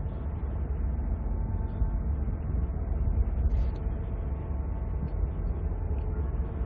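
Steady low rumble and hum of the lake freighter Paul R. Tregurtha's diesel engines, mixed with wind buffeting the microphone.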